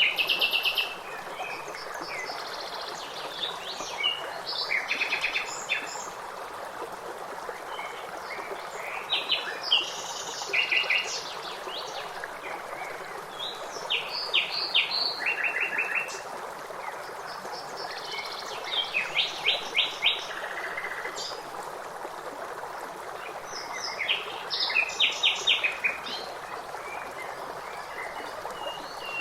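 A songbird singing short phrases of rapid repeated notes about every five seconds, over the steady rush of running water.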